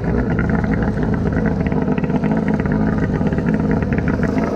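Kawasaki X2 jet ski's 650cc two-stroke engine running steadily through a newly fitted waterbox exhaust, with a loud, even note.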